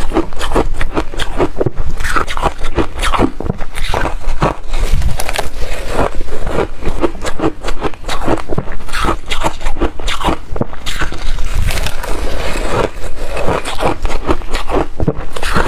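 A person biting and chewing soft reshaved freezer ice: loud, dense, continuous crunching.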